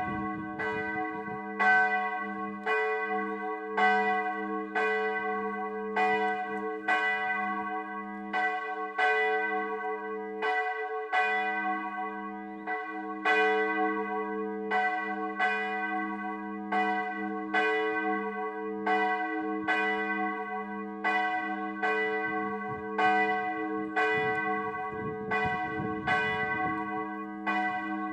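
Church bell in a wooden belfry ringing steadily, struck about once a second, each stroke ringing on into the next.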